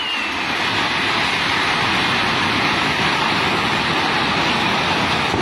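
Steady, loud rushing roar of a river in full flood, with the rumble of a multi-storey concrete hotel collapsing into it, the crash blending into the even noise rather than standing out as separate impacts.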